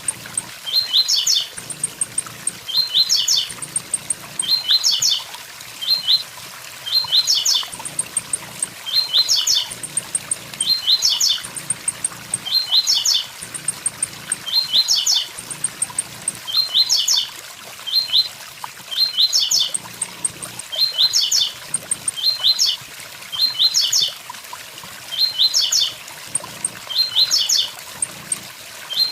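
Blue-black grassquit (tiziu) singing its short, high 'tui tui zel zel' phrase over and over, about once a second, over the steady rushing of a waterfall.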